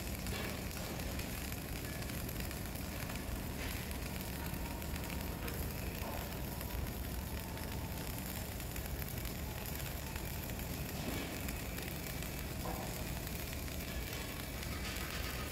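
Flux-cored arc welding: the arc crackling and sizzling steadily as a bead is run, over a steady low hum.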